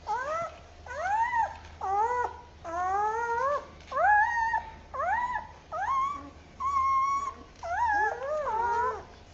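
Puppy crying, played slowed down: a string of about ten whines, each rising and then falling in pitch, roughly one a second.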